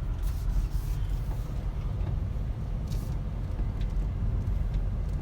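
Steady low rumble of a car driving slowly, engine and tyre noise heard from inside the cabin, with a few faint ticks.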